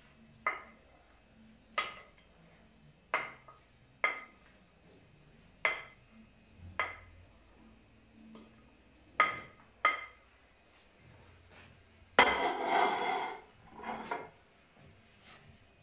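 Wooden spoon knocking and scraping against a ceramic plate, about one sharp, ringing knock every second or so, as chopped peppers and onion are pushed off it into a frying pan. About twelve seconds in comes a longer, louder clatter, then a few more knocks.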